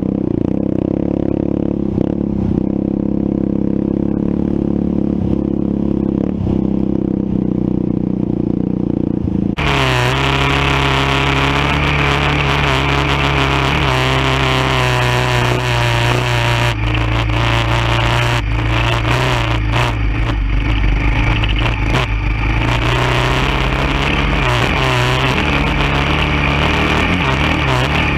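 Quad (ATV) engine running at a steady, even pace while riding over sand. About ten seconds in the sound abruptly turns brighter and fuller, with added clatter and rattle.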